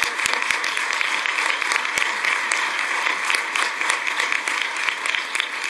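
An audience of many people applauding: dense, steady clapping.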